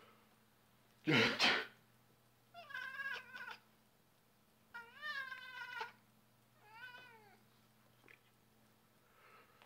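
A person sneezes once, loudly, about a second in. A Balinese cat answers with three drawn-out meows that rise and fall in pitch, the middle one the longest: its protest at the sneeze.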